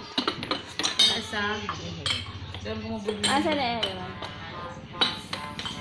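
White porcelain teacups clinking against one another as they are picked up and set back down among other cups, in an irregular string of sharp clinks.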